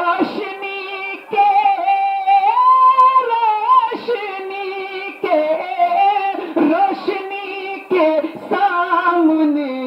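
A naat reciter singing a long, drawn-out devotional melody in a high voice, holding notes and sliding between them with ornamented turns.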